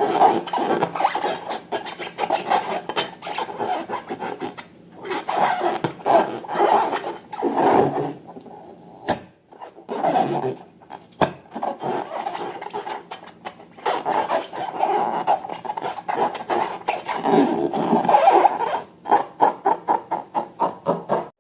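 Hands working slime and rubber balloons, making a rubbing, rasping sound in quick uneven strokes, with short lulls a few times.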